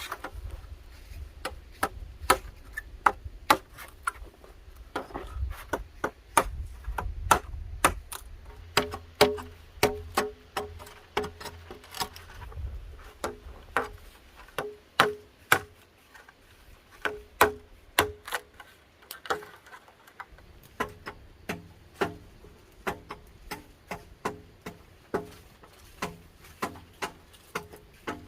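Repeated sharp chopping knocks, irregular at about one to two a second, some of them ringing briefly, over a low rumble that fades out about halfway through.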